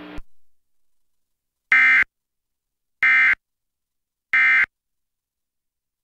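Emergency Alert System end-of-message (EOM) signal: three short identical bursts of SAME digital data tones, about a second apart, marking the end of the alert.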